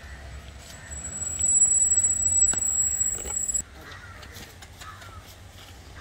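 A low rumble on the microphone with a steady high whine over it, starting about a second in and cutting off suddenly a little past halfway.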